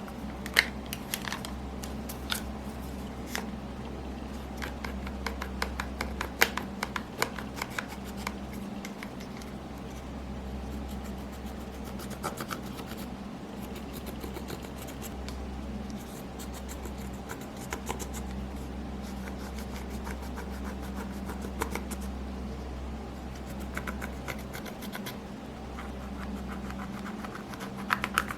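Hands kneading and stretching slime, giving off many sharp sticky clicks and crackles, densest in the first few seconds and again near the end, over a steady low hum.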